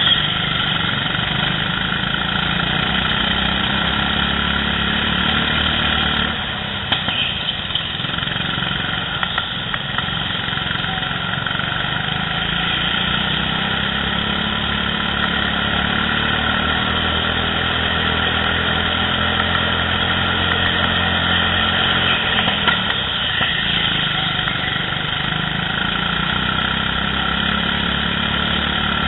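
Go-kart engine running hard through laps, its revs dropping about six seconds in and then building again as the kart slows and accelerates through the corners. There are a few light knocks soon after the drop.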